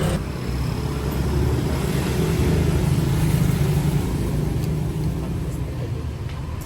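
A motor vehicle's engine running, a low rumble that swells to its loudest midway and then eases off.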